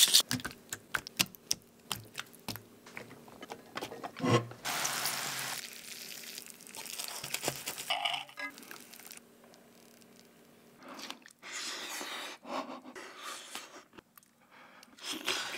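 A sequence of cooking sounds. A grinder's last few clicking turns come first, then a thump and a short hiss. Near the middle, fork and knife cut into melted cheese in a cast-iron skillet, and eating sounds follow near the end.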